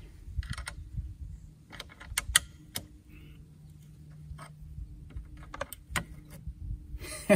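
Wrench on a rusted battery tie-down nut: a scattering of sharp metallic clicks and clinks as it is worked, then a louder crack near the end as the rusted tie-down gives way.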